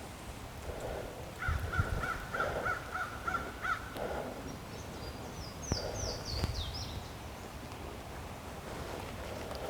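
A bird calling a quick series of about eight short, evenly spaced notes, followed a couple of seconds later by a small songbird's fast, high, descending phrase.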